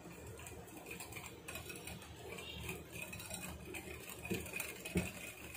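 Wire whisk stirring thick cake batter in a glass bowl: faint, rhythmic scraping and light ticking of the wires against the glass, with two sharper taps near the end.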